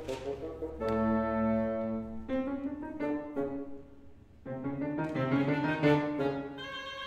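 Chamber-ensemble music of woodwinds and piano, with reed instruments holding sustained notes over piano chords. The playing thins out to a quiet moment about four seconds in, then comes back fuller.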